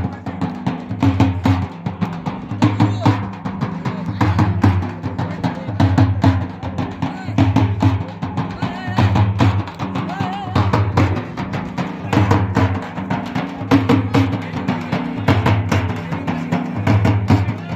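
Live drumming on large hand-carried drums, played in a steady driving rhythm: a deep beat about once a second with quicker sharp strokes over it.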